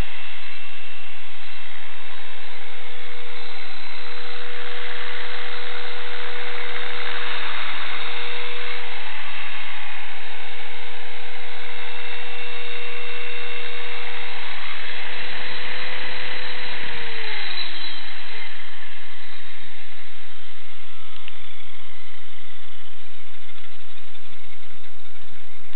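EXI-450 electric RC helicopter's motor and rotor running: a steady whine over a rushing noise. From about 15 seconds in the whine falls in pitch as the motor spools down, and it is gone by about 18 seconds.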